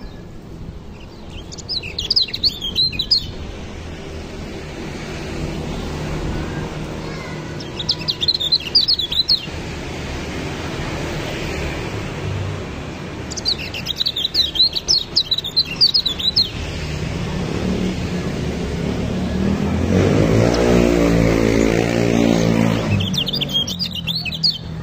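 A caged white-eye sings in four short bursts of quick, high twittering, the longest about three seconds. Between the third and fourth bursts a low engine hum swells and fades.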